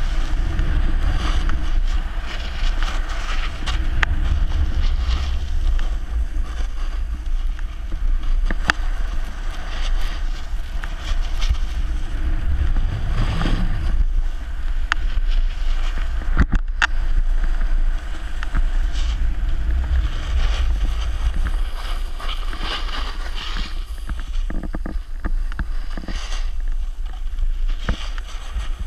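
Wind rumbling on a pole-mounted GoPro Hero 3's microphone while a snowboard slides and scrapes over snow, with scattered clicks.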